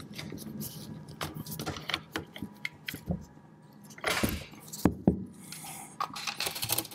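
Small metal clicks and clinks as the spring-loaded rear plug of a Darne 1926 machine gun's receiver is pushed in and slid off against the recoil spring. Two sharper clicks about five seconds in are the loudest.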